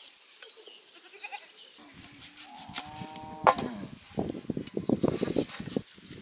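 A farm animal calls once, a drawn-out wavering cry, about two and a half seconds in. A sharp click follows, then close rustling and crackling.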